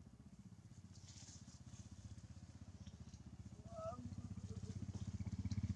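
Small engine running with a fast, even pulse, growing steadily louder toward the end, with a brief high squeak about four seconds in.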